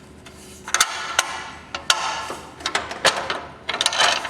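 Metallic clinks, taps and scrapes of a screw and spacer being fitted through an aluminium motorcycle skid plate into its mount. The sound is a quick string of sharp knocks with a short ring, starting about a second in.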